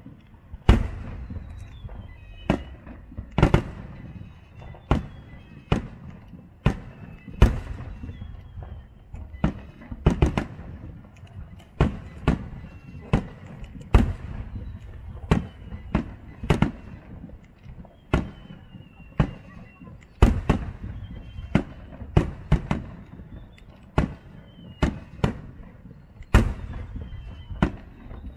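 Aerial fireworks shells bursting in quick succession, one or two sharp bangs a second, over a continuous low rumble from the barrage.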